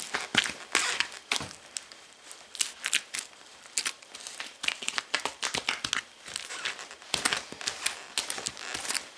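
Justin police boots stomping and grinding on plastic food wrapping and mushy food on a tile floor: dense, irregular crinkling and crackling of the plastic film under the soles.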